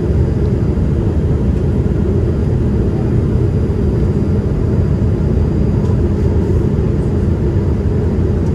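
Steady cabin noise inside a Boeing 787-8 airliner: an even, unchanging low rumble of the engines and rushing air.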